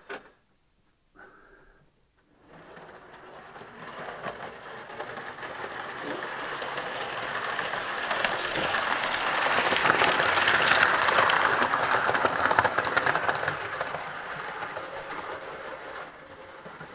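Model Intercity 125 (Class 43 HST) train running along the layout's track. It grows louder over several seconds, is loudest a little past the middle, then fades as it moves away.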